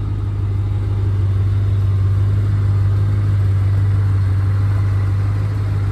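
2006 Ford Mustang GT's 4.6-litre V8 idling with a steady low hum.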